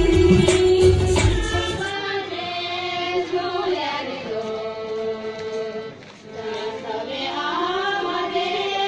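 Music with a low drumbeat and singing that cuts off about two seconds in. Voices then sing a slow, gliding melody with no beat.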